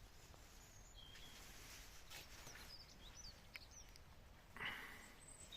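Quiet outdoor ambience with faint, scattered bird chirps, and a brief soft rustle near the end.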